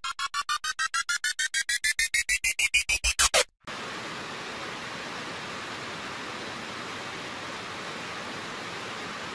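An electronic riser: a train of beeps that rise in pitch, speed up and get louder, then cut off suddenly. After it comes the steady, even noise of a weaving hall full of running looms.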